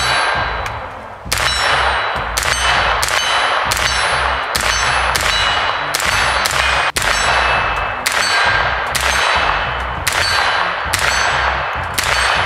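Colt 9mm AR-15 carbine with a 10.5-inch barrel, unsuppressed, fired semi-automatically in a steady string of about twenty shots, roughly two a second. Each shot is followed by a metallic ringing.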